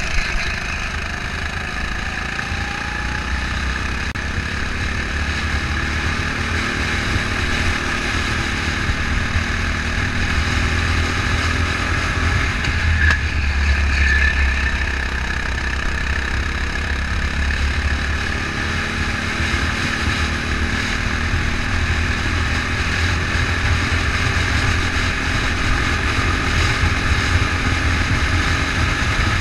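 Go-kart engine running steadily at speed, heard from an onboard camera, with a deep wind rumble on the microphone.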